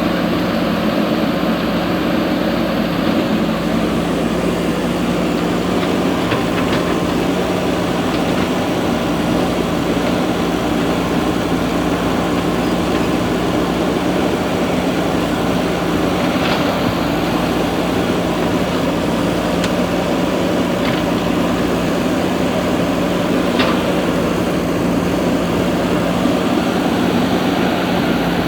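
Steady mechanical hum with a constant low tone, running without change of pitch, and a few faint clicks.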